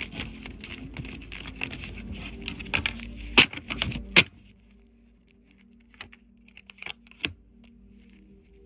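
Tarot cards being shuffled by hand: a rapid run of card clicks and rustling for about four seconds, ending in two sharp snaps, then a few scattered card clicks.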